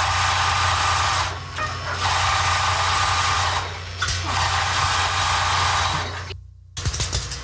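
Electric sewing machine running steadily in long stitching runs, easing off briefly twice. It cuts off suddenly about six seconds in.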